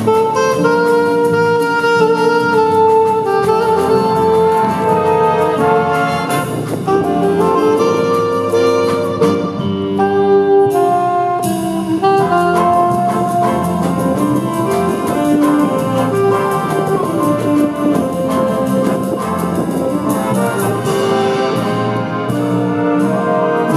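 High school jazz big band playing: saxophones, trumpets and trombones over drum kit, with a saxophonist standing out front.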